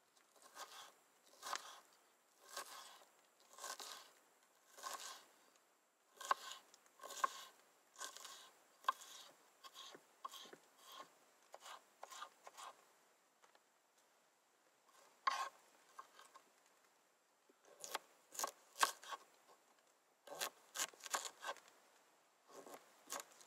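Knife slicing an onion on a wooden cutting board: crisp cutting strokes, about one a second at first, then in quicker runs broken by short pauses. Near the end the knife cuts into a tomato.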